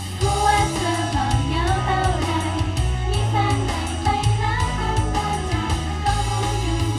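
Pop song played loud over a stage sound system: female voices singing together over a steady beat with drums and guitar.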